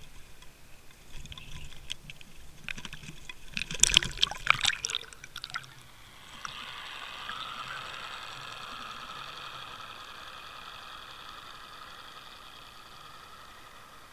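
Knocks and clatter of an action camera being handled, loudest around four to five seconds in as it goes over the side. Then a steady muffled underwater rush with a high-pitched whine that slowly fades as the camera sinks behind the trolling boat.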